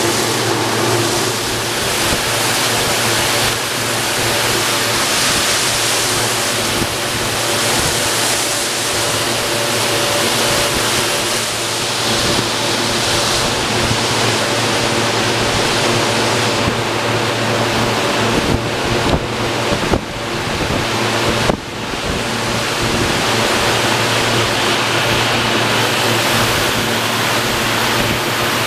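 Christ Varius rollover car wash running its brush wash: rotating brushes and water spray make a loud, steady hiss over a steady machine hum. A few sharp clicks come about two-thirds of the way through.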